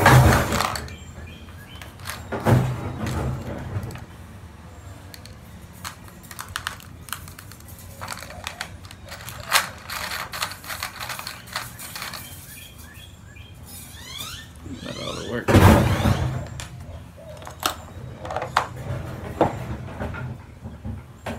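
Rummaging through a clear plastic tackle box: small plastic floats and tackle clicking and rattling in the compartments, with a few louder knocks at the start, a few seconds in, and again about two-thirds of the way through.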